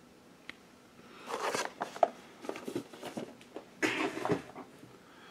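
Cardboard toy boxes being handled and set down: a rustle about a second in, then scattered light taps and clicks, and another rustle near four seconds in.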